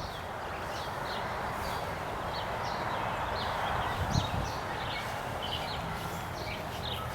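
Small birds chirping in short, irregular calls over a steady background hiss, with a brief low thump about four seconds in.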